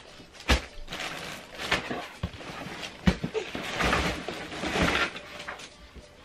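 Large cardboard shipping box being lifted and tipped over, with several sharp knocks of cardboard and rustling of its contents between them.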